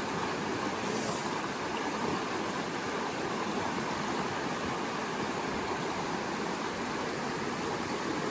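Creek water rushing steadily, an even broad hiss.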